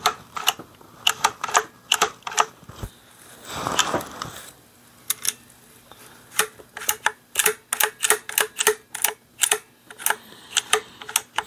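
Sharp metallic clicks of a Rossi Gallery .22 LR pump rifle's action and cartridge lifter being cycled by hand with the bolt removed, to test how a round feeds. A few clicks at first, then a quick run of clicks at about three a second through the second half.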